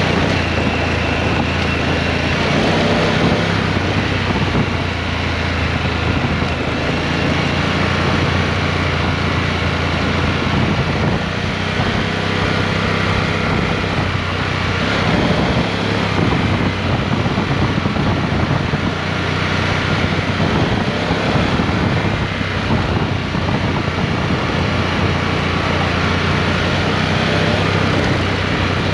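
Harley-Davidson Pan America Special motorcycle's V-twin engine running at a steady cruise on a gravel road, under a constant rush of tyre and wind noise.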